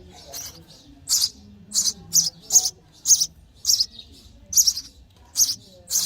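Sparrow nestlings begging for food: repeated short, high-pitched chirps, about two a second.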